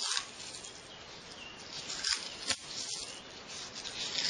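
Masking tape being wrapped and pressed down over cotton on a coil form: soft rustling and crinkling, with a few sharper crackles about two seconds in and again near the end.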